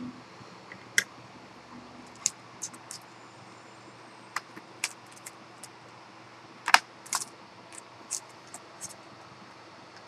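Scattered light clicks and taps from handling an Acer Aspire One netbook's loose, lifted keyboard, irregular and sharp, with the loudest pair a little past the middle.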